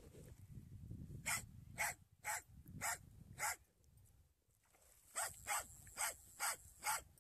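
A schnauzer barking excitedly while a trout is on the line: short, high-pitched barks about two a second, in two runs broken by a pause of about a second and a half in the middle.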